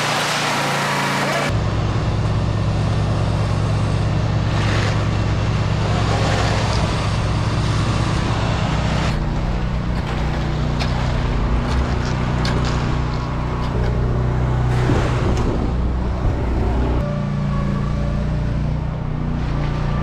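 Engine of heavy construction machinery running steadily at a concrete pour, with faint scrapes and knocks of rakes and shovels working wet concrete. The engine note shifts abruptly a few times.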